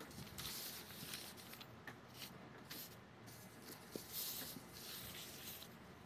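Faint rustling of thin calligraphy paper being handled and smoothed flat by hand, coming in several short soft bursts over a low hiss.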